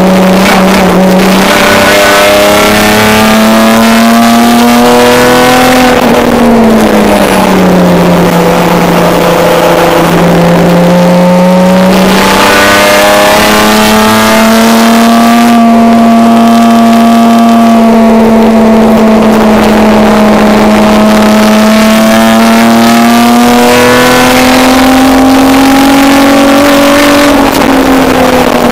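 Race car engine heard from inside its stripped, roll-caged cabin, running hard at high revs under load on track. Its pitch sags about six seconds in, climbs back about twelve seconds in and holds high, with wind and road noise underneath.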